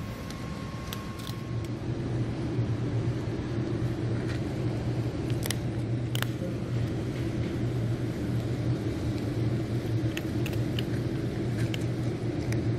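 Cats eating dry kibble from a metal plate: a few scattered crunches and clicks over a steady low rumbling hum.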